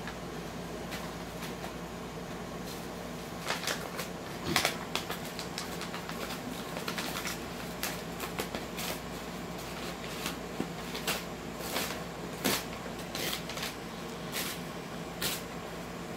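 Corgi puppy chewing and tearing at a brown paper bag: irregular crinkling and ripping of paper, with a few sharper rips.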